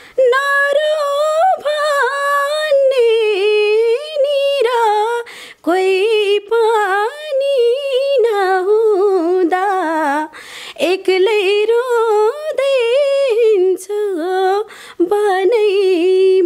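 A young woman sings a Nepali folk song unaccompanied. The melody is ornamented and its pitch wavers, in long phrases broken by short breaths.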